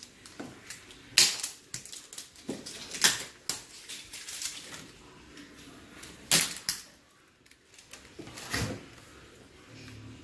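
Irregular sharp clacks and knocks of hard objects being handled, the loudest about a second, three seconds, six seconds and eight and a half seconds in, with smaller clicks between.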